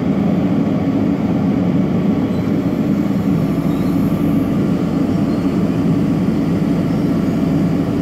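JCB backhoe loader's diesel engine running steadily, a loud even drone that does not change while the bucket works.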